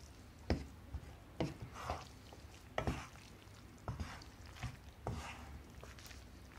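Two wooden spatulas tossing spaghetti in a nonstick frying pan to coat it with egg and cheese cream. The stirring is soft, with irregular light knocks of wood against the pan, about one or two a second.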